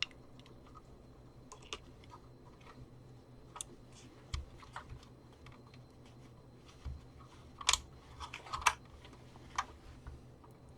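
Scattered light clicks and taps of small tools and plastic parts being handled at a workbench, sparse at first and busier near the end, over a faint steady low hum.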